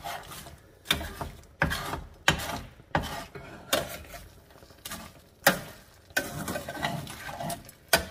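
Metal spoon scraping and clinking against a stainless steel skillet while crispy corn tortilla pieces are stirred and folded into scrambled eggs, with sharp knocks about once a second at an uneven pace.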